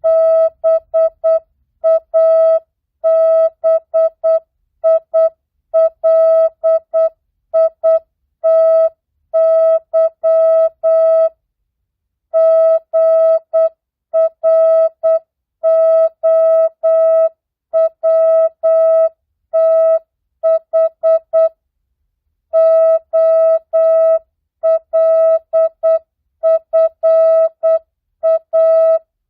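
Morse code practice tone, a single mid-pitched beep keyed on and off in dots and dashes at 8 words per minute, non-Farnsworth spacing, sending mixed words, numbers and punctuation. Longer pauses about twelve and twenty-two seconds in mark the gaps between words.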